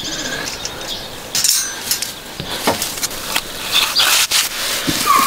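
Wire-mesh cage trap clinking as it is handled and set, then a knife cutting through an apple: a run of sharp, irregular clicks and knocks. Birds chirp faintly near the start.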